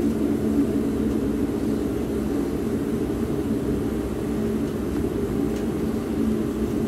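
Passenger cabin of a Class 150 Sprinter diesel multiple unit on the move: the underfloor diesel engine's steady droning hum over low wheel-and-track rumble.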